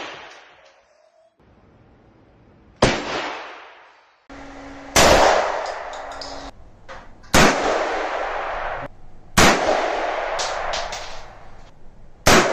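Five single gunshots from firearms at a shooting range, spaced about two to three seconds apart, each a sharp crack followed by a long echoing tail.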